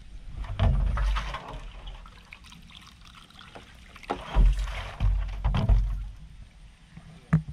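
Water poured from a large plastic jug into a small plastic cup, heard as a few short bursts of splashing mixed with low thumps of handling. A sharp knock comes near the end.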